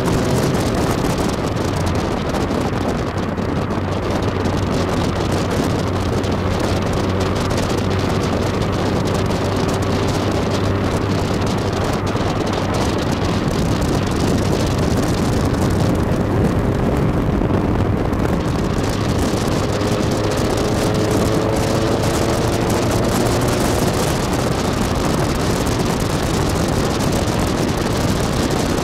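Tiger kit sports car's engine running at road speed, with heavy wind and road noise in the cockpit. The engine note rises a little about two-thirds of the way through as the car speeds up.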